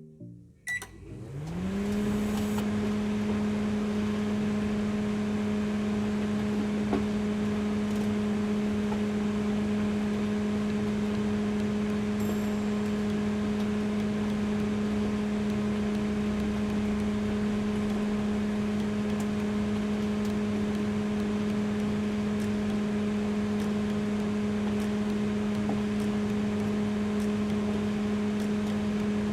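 An LG MH-4048GW microwave oven starting and running on high power. A few clicks come first, then a hum that rises in pitch over about a second and holds steady, with no rattle or grinding from the cooling fan, which has just been repaired.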